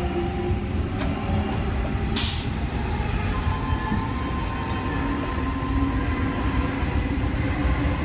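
Sliding passenger doors of a Sydney Trains Tangara electric train closing, over the steady hum of the stationary train. There is a short, loud burst of hiss about two seconds in and a couple of faint clicks soon after.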